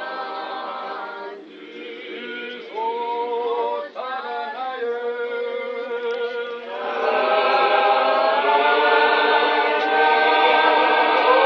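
Church congregation singing unaccompanied, a chant-like hymn in many voices. The singing grows fuller and louder about seven seconds in.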